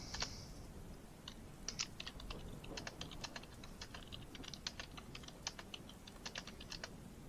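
Computer keyboard typing: quick, irregular runs of keystroke clicks, starting about a second in.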